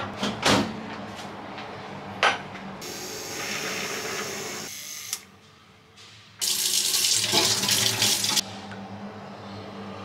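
Liquid being poured into a mug and pitcher: a few sharp clinks of glass or ceramic, then a stream of water running for a couple of seconds. After a short break comes a louder rushing pour of about two seconds.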